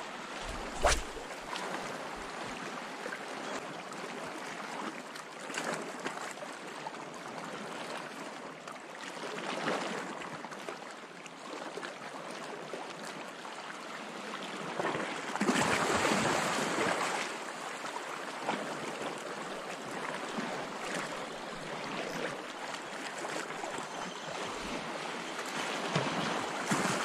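Small sea waves washing against shoreline rocks: a steady rushing wash that swells louder about ten seconds in and again around sixteen seconds, with a single sharp knock near the start.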